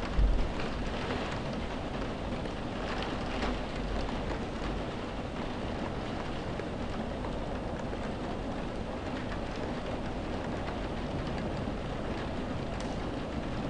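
Heavy rain against window glass, heard from indoors with wind: a steady, dense patter of countless drops. A brief low rumble comes right at the start.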